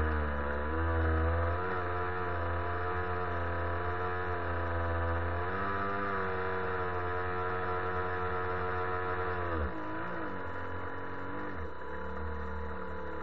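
RC model boat's motor running under throttle, heard through the boat's hull-mounted camera, while the boat tows another boat on a line. Its stack of tones shifts in pitch, falls sharply about ten seconds in as the throttle eases, then wavers and picks up again near the end.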